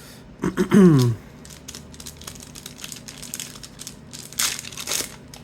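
Foil wrapper of a 1991-92 Upper Deck trading card pack crinkling and being torn open, with small clicks of card handling, loudest about four to five seconds in. Near the start a brief hummed voice falls in pitch.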